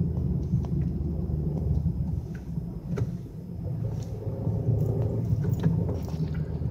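Steady low rumble of a car's engine and tyres heard from inside the moving car, with a few light clicks over it.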